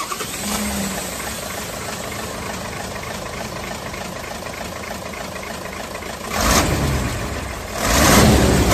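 Large truck engine idling steadily, then two loud surges of noise, about six seconds in and again near the end.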